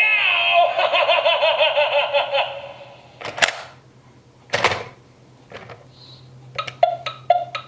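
Gemmy animated monster alarm clock playing a recorded monster laugh through its small speaker, over a low steady hum. The laugh is followed by two short hissing bursts and, near the end, a quick run of short electronic tones.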